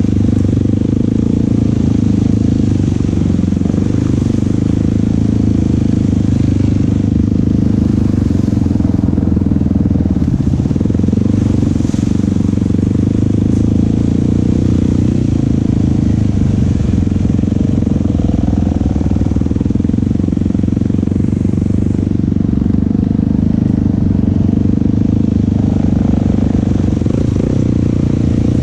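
Yamaha YFZ450SE quad's single-cylinder four-stroke engine running steadily, with little change in pitch.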